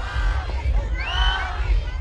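Wrestling crowd shouting and cheering, many voices yelling over one another, with one shout rising sharply about a second in, over a steady low rumble.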